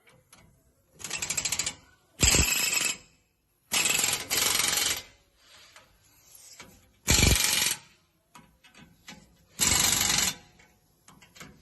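Impact wrench run in about six short bursts of rapid hammering, running down suspension bolts before they are torque-checked.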